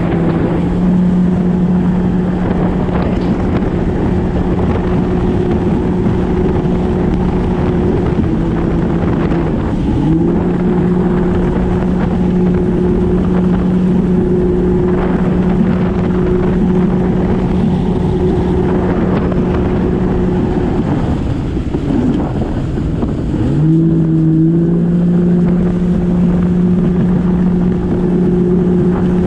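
Personal watercraft (Yamaha WaveRunner) engine running at a steady high pitch while under way, over wind buffeting the microphone and water rushing past. About ten seconds in the pitch dips briefly and climbs back. Around twenty seconds in the throttle is let off and the engine note drops out for about three seconds, then it revs back up to speed.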